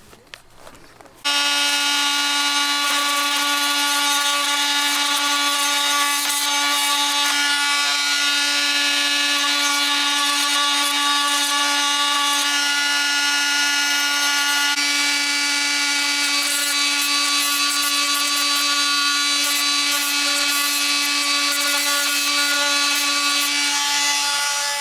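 Oscillating multi-tool running steadily, trimming the excess weld flash out of the corners of a vinyl window frame. It switches on suddenly about a second in and holds one steady buzzing pitch with a scraping hiss over it.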